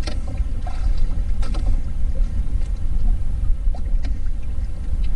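Steady low rumble of a small fishing boat on the water, with a few short knocks and clicks as the handline is pulled in over the side.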